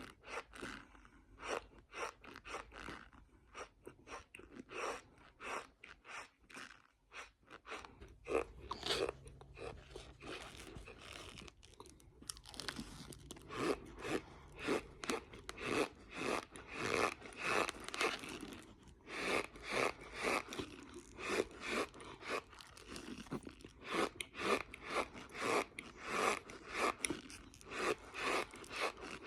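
A person chewing mouthfuls of raw cornstarch: a steady run of squeaky crunches, about two a second, with a quieter, sparser stretch early on before the chewing picks up again.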